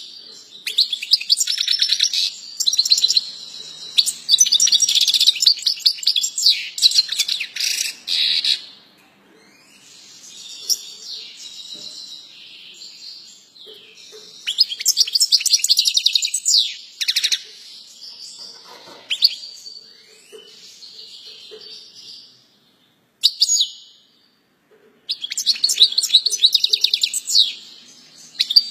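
European goldfinch singing: fast, high twittering and tinkling song in loud spells, broken by quieter stretches and a couple of brief pauses.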